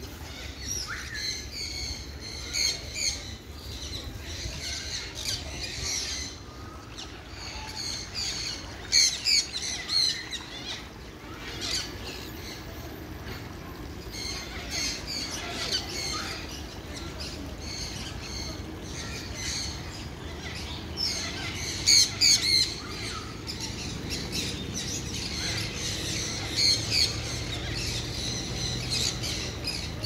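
Many birds squawking and chirping in short, repeated, shrill calls, with the loudest squawks about nine to ten seconds in and a quick run of three about twenty-two seconds in.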